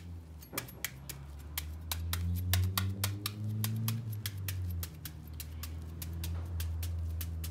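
Kitchen knife cutting into a whole white onion held in the hand, a quick run of crisp cuts, about four or five a second, as the onion is chopped. A low steady hum sounds underneath.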